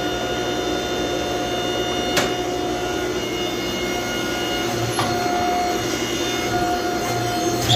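Steady mechanical hum and whir of running forging equipment, a gas forge burner and the motor of a forging press, with a sharp metallic clank about two seconds in and another near the end.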